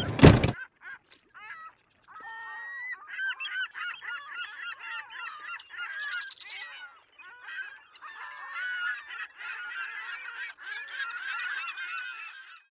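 A flock of birds calling, many short arching calls overlapping in a dense chorus, with a few harsher calls standing out around the middle, fading out at the very end. A brief loud burst right at the start is the preceding music cutting off.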